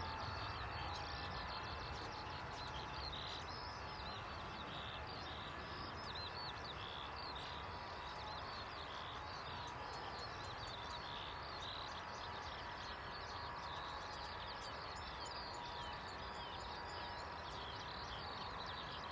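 Many small birds chirping and twittering over a steady low rumble and hiss, with a faint steady whine underneath.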